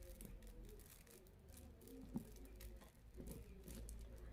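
Near silence with faint clicks and rustles of beads and beading wire being handled, and one slightly louder tap about two seconds in.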